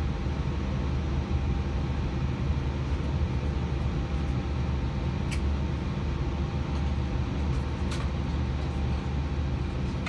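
Steady low rumble heard from inside a vehicle, with two short clicks, one about five seconds in and one about eight seconds in.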